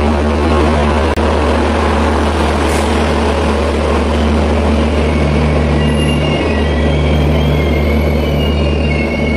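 Express train passing close along a station platform, with a steady low drone and the rumble of coaches. High-pitched wheel squeal sets in about six seconds in and grows.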